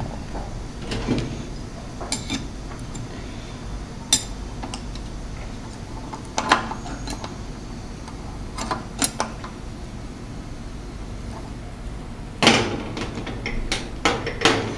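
Scattered metallic clinks and knocks from small machine parts and tools being handled while the coding machine is assembled, over a low steady hum, with a louder cluster of knocks near the end.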